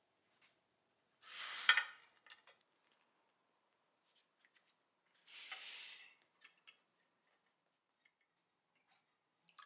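Hot pistol frame coming out of a hot-bluing salt tank: two short hissing sizzles about four seconds apart, the first with a sharp metal clink in it, and faint ticks between them.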